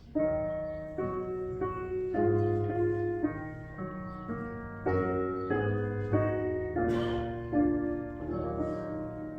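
Piano playing the introduction to a hymn: a slow run of chords, each struck and then fading.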